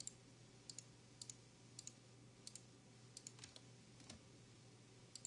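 Faint computer mouse clicks, many in quick pairs, every half second to second, over a low steady hum.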